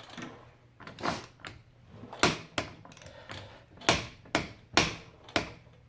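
A ratcheting torque wrench being worked on a front axle nut: a string of about eight sharp, irregular metallic clicks as the nut is pulled up to torque.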